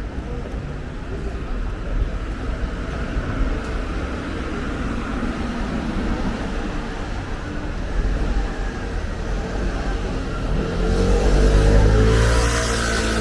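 Street traffic rumbling steadily; near the end a motor vehicle's engine rises in pitch and grows louder as it accelerates close by.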